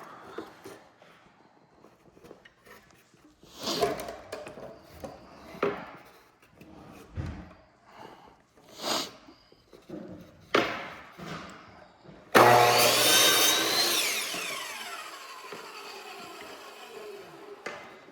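Several light knocks and rustles of wood and tools being handled, then a power tool's motor starts loudly about twelve seconds in and winds down over about five seconds, its pitch falling as it coasts to a stop.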